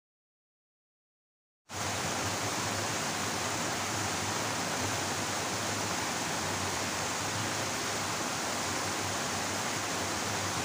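Water pouring out of a large culvert pipe into a small stream: a steady rushing of falling water. It starts suddenly after a second and a half of silence.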